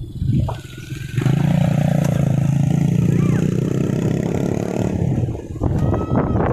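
A motor vehicle's engine running close by, a steady low hum for about four seconds, then giving way to street noise with clatter near the end.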